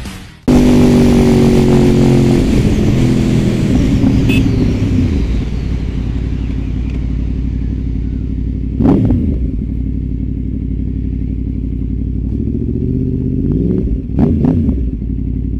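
Motorcycle engine heard from onboard while riding, with wind rush. The revs fall over the first few seconds and then hold steady, with brief louder surges about nine seconds in and near the end.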